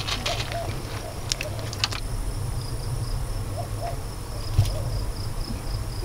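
Quiet outdoor ambience: a steady high, pulsing insect trill over a low rumble, with a few short clicks.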